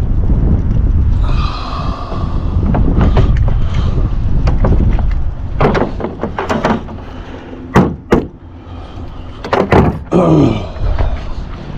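Wind rumbling on the microphone, with a series of sharp knocks and clunks through the middle and later part.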